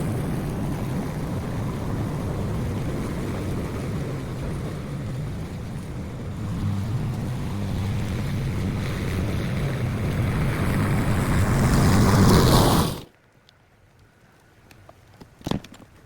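Lawn mower engine running steadily while cutting wet, overgrown grass, growing louder and then stopping abruptly about 13 seconds in. A single short knock follows in the quiet.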